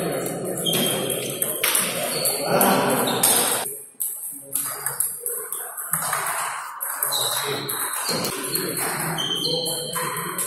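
Table tennis play: the celluloid ball clicking off bats and the table in quick short hits, with voices around the hall in the background.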